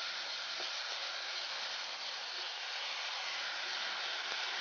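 Steady sizzling hiss from a hot pan of grated coconut as treacle is poured in.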